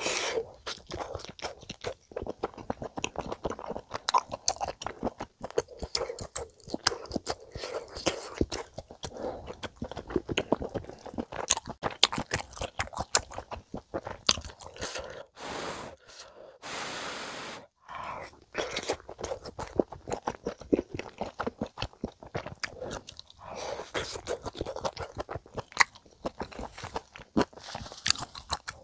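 Close-miked chewing and biting of a mouthful of spicy stir-fried chicken (dakgalbi) and udon noodles: a dense, irregular run of wet mouth clicks. A brief hiss comes a little past halfway.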